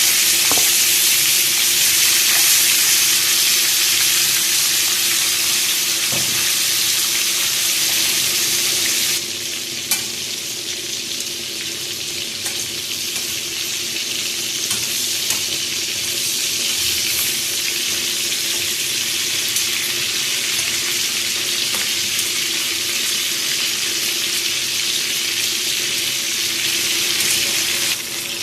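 Chicken wings frying in a hot pan, a steady sizzle that eases a little about nine seconds in. There is a single sharp click about a second later.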